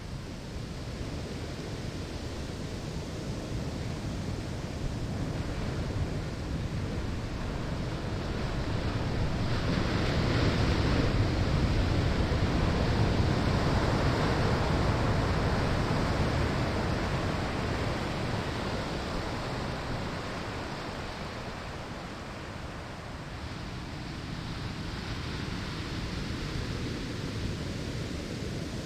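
Waves breaking on a sandy shore: a steady wash of surf that swells to a louder break about ten seconds in, holds for several seconds, then eases back before building again near the end.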